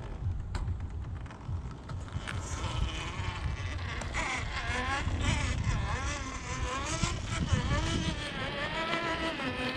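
Scale RC rock crawler's brushless motor and geared drivetrain whining, the pitch rising and falling again and again with the throttle from about two and a half seconds in, over a low rumble. A couple of sharp knocks sound in the first two seconds.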